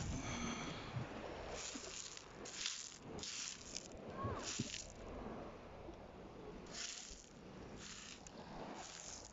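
A hand sifting through small beach pebbles: faint, irregular clatters and scrapes of stones being pushed aside, several short bursts a second or so apart.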